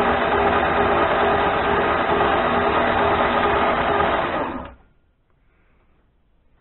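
Mini lathe running steadily with a whine and hum from its motor and spindle drive. About four and a half seconds in it is switched off and the sound cuts off within a fraction of a second.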